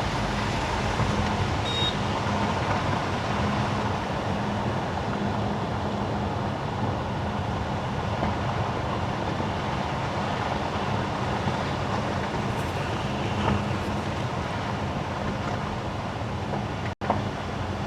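Steady driving noise of a car on wet winter asphalt: tyre hiss over a low, even hum. The sound cuts out for an instant near the end.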